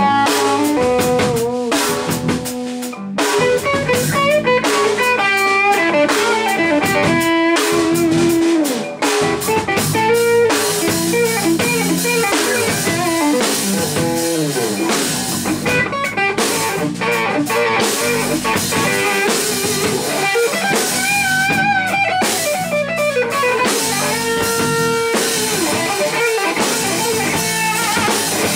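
Instrumental rock trio playing live: electric guitar lines over electric bass and a drum kit, loud and continuous.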